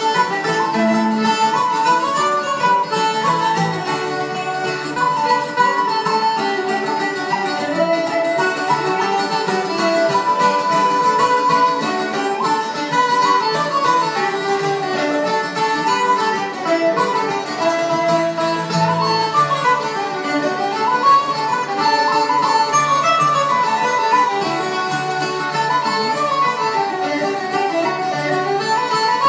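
Irish traditional band playing a fling live, with fiddle and plucked strings such as banjo carrying a quick, ornamented melody that runs up and down over a steady rhythmic accompaniment.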